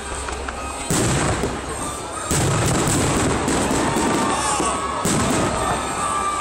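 Fireworks going off: three loud bangs about a second, two seconds and five seconds in, each followed by dense crackling as the shells burst overhead.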